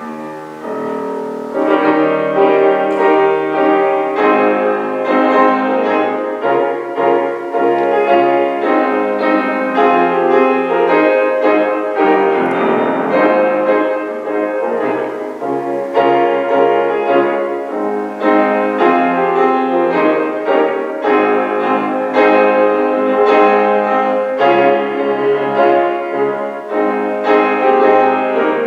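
Piano playing the postlude after the benediction, a steady flow of chords and melody that comes in softly and reaches full volume about two seconds in.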